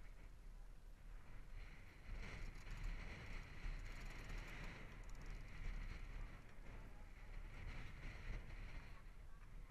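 Water rushing and splashing along the hull of a moving catamaran, a faint steady wash with a low rumble underneath that swells and ebbs, a little louder from about two seconds in.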